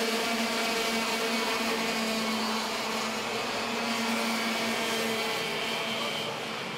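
Racing kart engine running at high, nearly steady revs, heard close up from on board; it fades about five seconds in.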